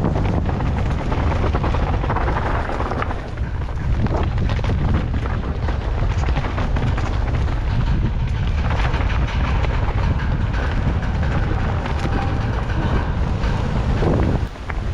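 Mountain bike descending a rough dirt trail: wind buffeting the camera microphone over a steady rumble of tyres on dirt, with frequent small knocks and rattles from the bike over bumps.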